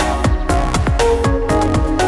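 Electronic background music with a steady beat, about two beats a second, each with a falling bass drop.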